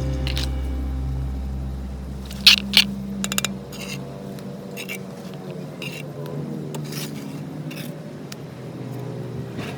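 Hand work with hard materials: light scraping and scattered sharp clicks and taps, loudest as a pair about two and a half seconds in, followed by a quick run of ticks. A low note fades out over the first few seconds.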